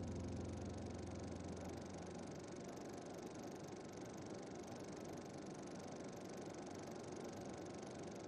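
Faint, steady hiss from the background noise of an old video recording, with a low musical note dying away in the first second or two.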